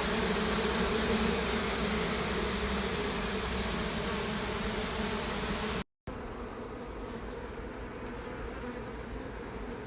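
Honeybee colony buzzing as a steady, dense hum. It drops out briefly about six seconds in and carries on softer.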